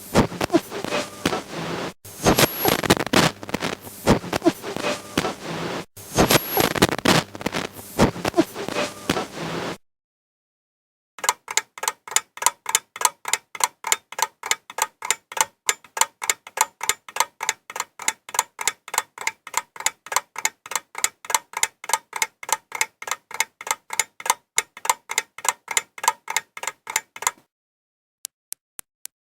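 Dense, irregular clicking and crackling for about ten seconds, then, after a short silence, a steady mechanical ticking at about four ticks a second, each tick ringing briefly. The ticking stops abruptly, and fainter, faster ticks follow near the end.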